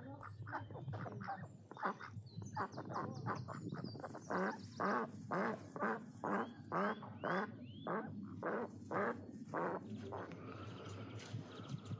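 White domestic ducks quacking. The quacks are softer at first, then come as a loud, steady run of about two a second before stopping near the end.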